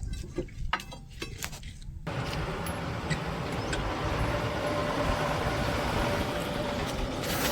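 A few sharp metallic clicks over a low rumble, then, from about two seconds in, the steady running noise of a motor vehicle.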